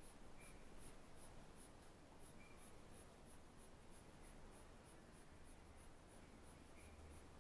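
Faint scratching of a pencil shading on paper, in quick, evenly repeated strokes of about three a second.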